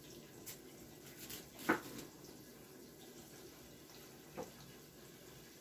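Faint, steady sizzle of floured cauliflower frying in oil in a lidded pot, with a few short knocks of a knife cutting through cauliflower onto a wooden cutting board. The loudest knock comes about one and a half seconds in.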